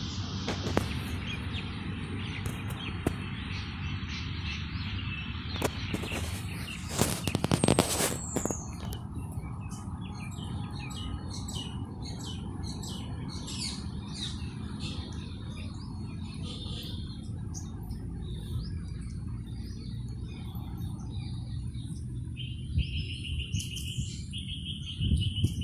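Small birds chirping in short, high calls over a steady low background rumble, with a brief burst of loud knocks or rustling about seven seconds in.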